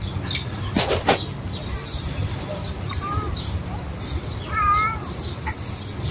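Domestic cat meowing: a faint short call about three seconds in, then a louder wavering meow a little later. Two sharp knocks come about a second in, over a steady low rumble.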